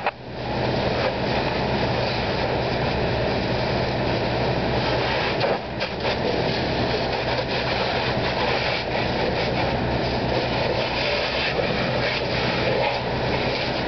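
Steady loud rushing rumble of a fire hose stream being sprayed on a burning house, unbroken throughout.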